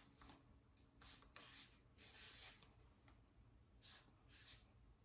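Marker writing on flip-chart paper: a series of short, faint, scratchy strokes as letters are written.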